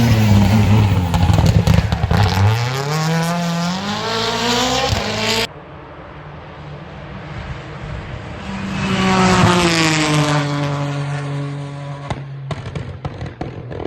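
Rally car engines at full throttle on a stage: one car's engine dips in pitch and then climbs hard through the revs. After a sudden cut, a second car comes in, its engine swelling and rising before holding steady. Sharp cracks follow near the end.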